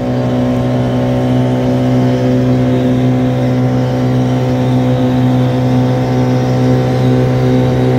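Yamaha jet boat's engine running hard on a speed run, a steady engine tone that gets louder right at the start and then holds as the boat gathers speed; the engine is on its stock NGK LFR6A copper-core spark plugs.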